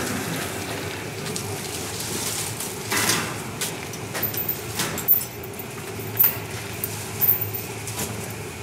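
Leafy tree branches rustling and knocking against a steel mesh grille as they are lifted and hung up, in several short bursts, over a steady low hum.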